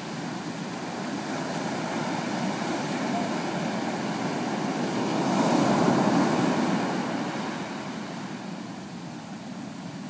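Ocean surf washing up a sand beach, with a wave breaking close in and swelling loudest a little past halfway, then easing off as the foam runs back.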